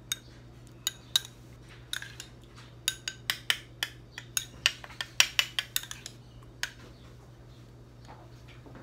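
Metal spoon clinking and scraping against a small ceramic bowl while stirring tamarind pulp in water: a run of quick, sharp clinks, thickest from about three to six seconds in, dying away after about seven seconds. A faint low hum runs underneath.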